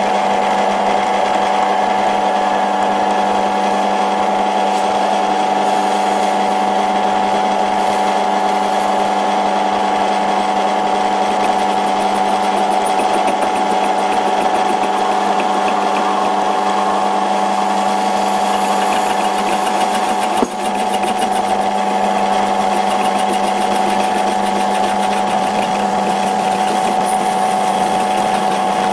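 Antique pre-war Karger metal lathe running at 425 RPM, belt-driven by a one-horsepower electric motor, making a steady hum and whine while its tool takes a facing cut across the end of a metal bar. The sound dips briefly about two-thirds of the way through.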